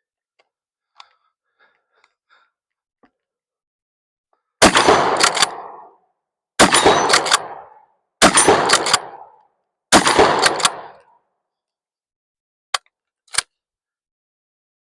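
Rock Island pump-action shotgun firing four shots of 00 buckshot, about two seconds apart, each blast trailing off in a short echo. Two short sharp clicks follow near the end.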